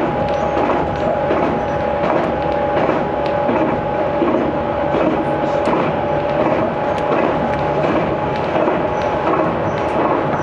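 Aizu Railway 6050 series electric train running at speed, heard inside the passenger car: a steady rumble of wheels on rail with two steady tones held throughout and scattered light clicks and rattles.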